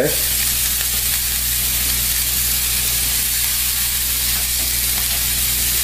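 Oiled vegetable chunks sizzling steadily in a smoking-hot pan, searing undisturbed to build a char. A faint low hum runs underneath.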